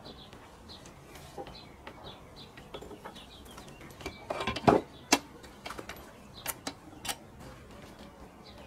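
Scattered clicks and knocks as hands handle a Husqvarna 365 chainsaw and the metal Logosol Timberjig bracket clamped to its bar, with the engine off. The loudest knock comes about halfway through.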